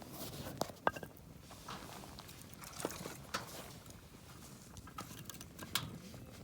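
Scattered sharp clicks and light taps over a low background hiss, with a cluster about a second in and single ones spread through the rest.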